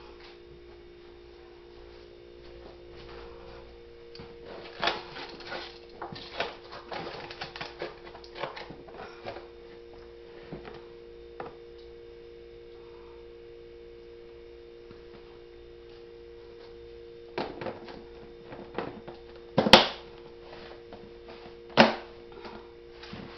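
Rustling plastic wrap and knocks of frozen meat packages being handled and sorted, in two spells, with two sharp knocks near the end. A steady hum runs underneath.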